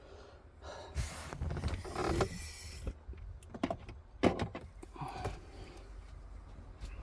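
Hands working on car door parts: a rustle lasting about two seconds, then a few sharp clicks and knocks, the loudest about four seconds in.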